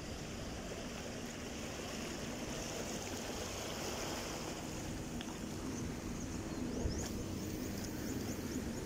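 Small waves lapping and washing in shallow sea water, with wind rumbling on the microphone.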